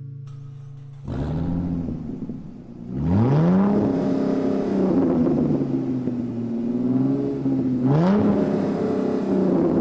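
Sports car engine starting about a second in, revving up sharply around three seconds, running steadily, then revving again near the end.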